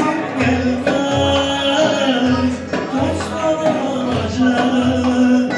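Live Ankara oyun havası folk dance music: a saz (bağlama) melody over a steady, repeating drum beat.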